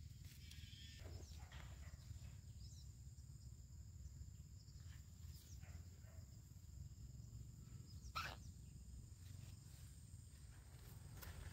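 Faint rustling of squash leaves and short cracks of squash stems being snapped off by hand, with one sharper snap about eight seconds in, over a low steady rumble.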